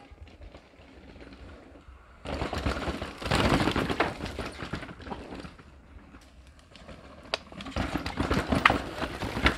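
Downhill mountain bike passing on a dry dirt trail: tyres on dirt with the chain and bike rattling in quick clicks. It swells about two seconds in and fades away, then a second pass builds near the end.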